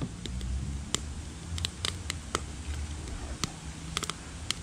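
Wood fire crackling, with sharp irregular pops scattered through, over a low rumble of wind on the microphone.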